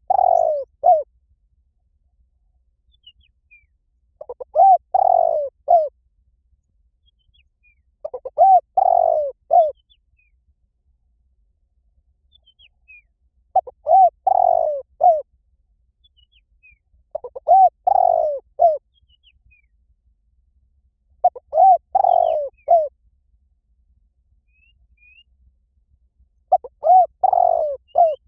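Spotted dove cooing: a short phrase of three or four coos, repeated about every four seconds. Faint chirps of other small birds come between the phrases.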